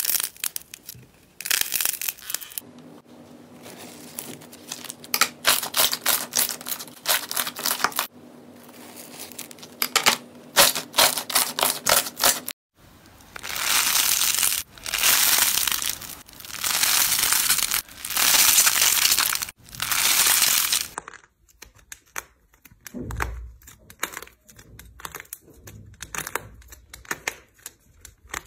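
Slime and clay handled by hand at close range: rapid crackling and squishing in the first half, then long swells of crunchy crackle as a yellow textured slime is stretched. In the last quarter, sparse cracks and clicks come as a dried pink clay crust breaks under the fingers.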